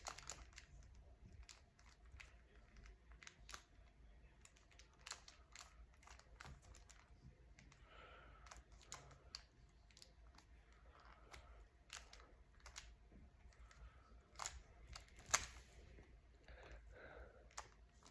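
Faint, irregular plastic clicks of a Rubik's cube being turned by hand, with one sharper click about fifteen seconds in, over a low room hum.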